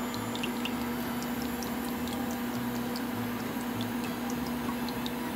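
Cooking oil poured in a thin stream from a plastic jug into a stainless steel pot, with scattered faint ticks and splashes. A steady low hum runs underneath.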